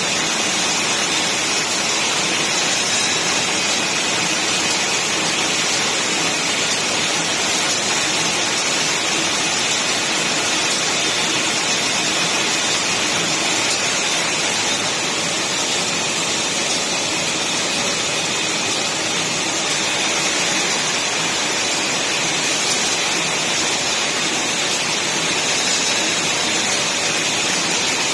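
Shrink-wrapping packaging machine running at about 60 packs a minute: a loud, steady hiss with faint high whines under it and no distinct rhythm.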